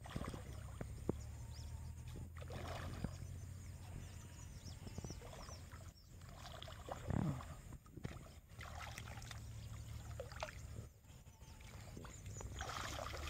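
Water sloshing and splashing around people wading waist-deep while playing a hooked fish on a bent rod, with a few louder splashes, one about seven seconds in and another near the end, over a low steady rumble.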